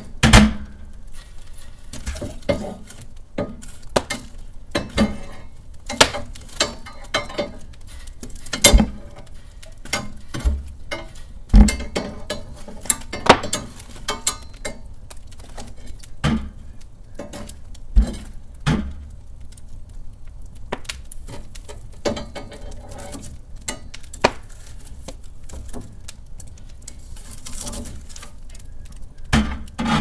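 Metal fireplace tongs knocking, clinking and scraping against burning Douglas fir logs and the iron grate as the logs are rearranged, amid the fire's crackling and popping: irregular sharp clicks and knocks, a few of them loud, with a longer scraping near the end.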